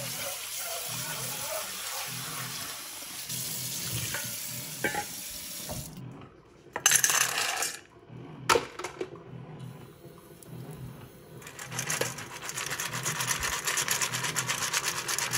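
Water running from a kitchen tap into a stainless steel bowl of dry dog kibble. After a brief loud splash and a few quieter pauses, the water is poured off the soaked kibble into a stainless steel sink with an even, fluttering trickle near the end.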